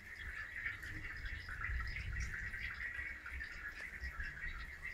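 Steady trickling of flood water running across the floor.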